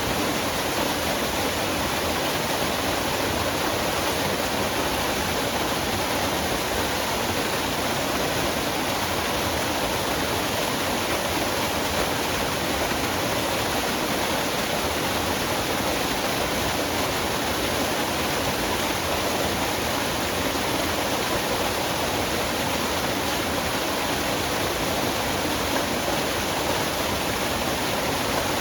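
Forest waterfall: water falling and splashing in a steady, even rush with no change.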